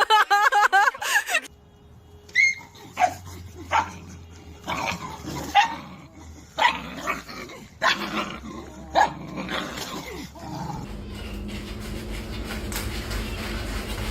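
Dog vocalising: a wavering, whining call at first, then a scattered string of short barks and yips. A steady low hum comes in near the end.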